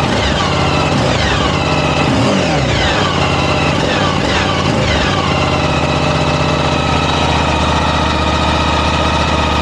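Suzuki V-Strom 1050DE's V-twin engine through its stock exhaust can: the revs fall back after several throttle blips, then it idles steadily for the last few seconds. The stock can is not terribly loud.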